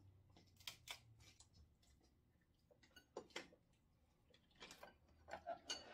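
Faint, scattered clicks and cracks of cooked king crab legs being snapped and their shells picked apart by hand, with a cluster of sharper cracks near the end.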